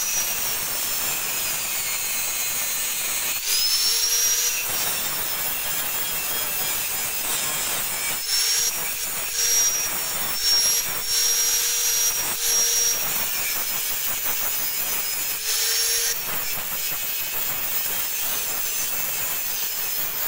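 Handheld electric angle grinder grinding metal on a motorcycle's front fork. Its high whine dips in pitch and recovers several times as the disc is pressed into the work and eased off.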